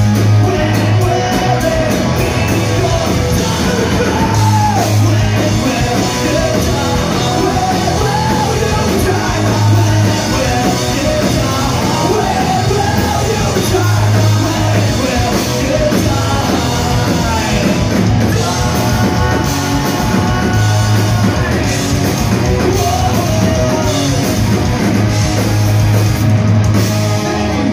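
Live melodic hardcore punk band playing loud distorted electric guitars, bass and drums, with the singer half-singing, half-shouting the vocal line. It is heard from among the audience in a club hall.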